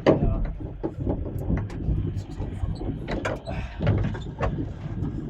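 Low, steady rumble of a fishing boat under way, with wind on the microphone, and a string of sharp knocks and clatters from handling on deck, the loudest right at the start.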